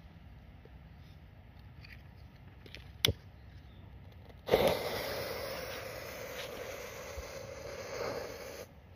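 A single sharp click of a lighter about three seconds in. About a second and a half later a loud hiss starts suddenly as the fuse of a coloured smoke-ball firecracker catches in a hole in the ground and throws sparks. The hiss holds for about four seconds, then cuts off suddenly.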